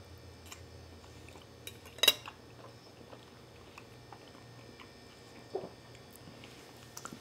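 A metal fork clinks sharply once against a ceramic pasta bowl about two seconds in, with a few faint clicks around it.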